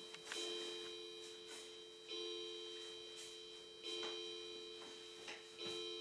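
Pendulum wall clock striking the hour for eleven o'clock: evenly spaced chime strokes, about one every 1.75 seconds, each ringing out and fading before the next.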